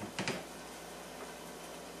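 Kitchen knife cracking into the hard rind of a whole spaghetti squash: two short crunches in quick succession about a quarter-second in, over a faint steady hiss.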